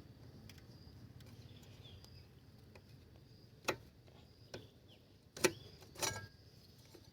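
A few light metallic clinks and knocks of brake pads and caliper parts being handled: one small click a little past halfway, then two louder clinks close together near the end.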